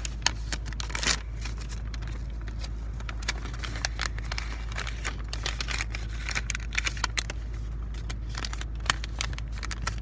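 Origami paper being folded and creased right at the microphone: crinkling and rustling with many small clicks. A steady low hum from the car runs underneath.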